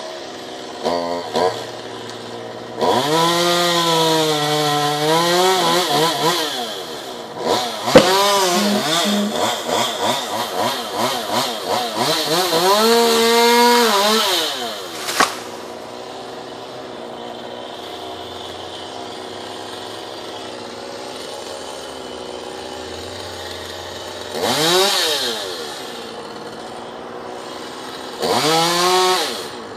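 Chainsaw revved to full throttle and cutting, its pitch dipping and recovering repeatedly under load. It drops back to a steady idle, then is blipped up briefly twice near the end, with a couple of sharp knocks along the way.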